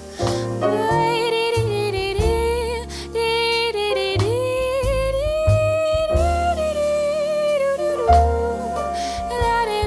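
Small band playing a jazz-soul song: a wordless, gliding female vocal melody over piano chords, walking bass notes and drums with cymbal hits.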